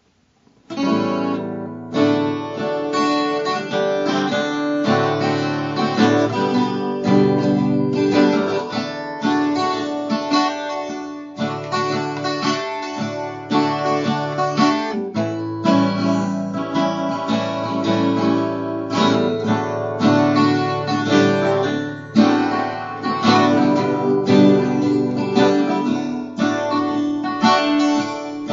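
Twelve-string acoustic guitar strummed in a steady rhythm, starting about a second in.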